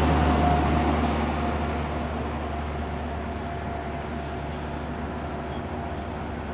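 Outdoor road noise: a wash of passing traffic that fades over the first two seconds into a steady low hum.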